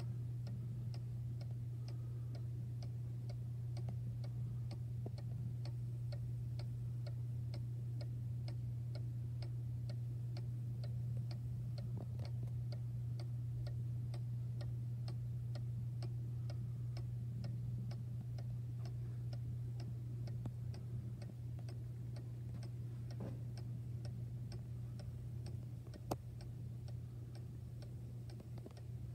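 Vintage German two-weight cuckoo clock ticking, its pendulum escapement beating a quick, even rhythm over a steady low hum. One sharper click sounds near the end.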